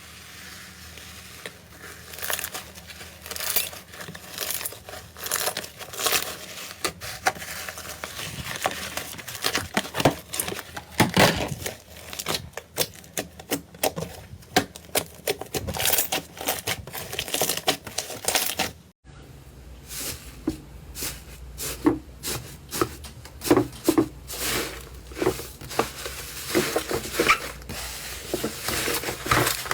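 Slime being squeezed and pressed by hand, giving many irregular sharp crackling pops and clicks. The sound cuts abruptly about 19 seconds in to another batch of slime being worked, with softer, lower pops.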